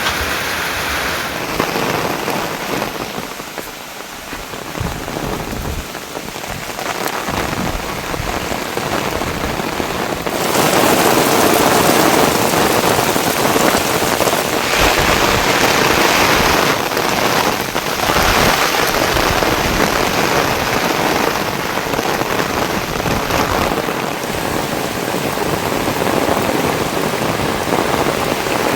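Heavy rain pouring steadily, turning heavier and louder about ten seconds in.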